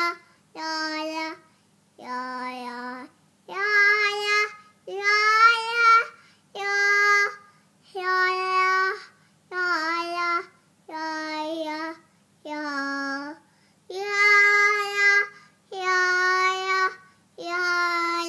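A drowsy toddler singing a string of about a dozen long held notes, each about a second, with short breaths between them and the pitch moving up and down from note to note.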